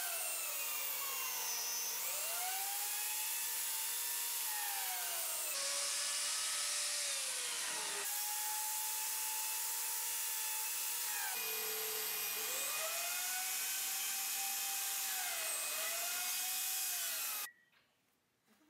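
Lamello biscuit joiner running and plunging its blade into the mitered wooden frame to cut biscuit slots, its motor whine rising and falling over and over. The sound cuts off abruptly about a second before the end.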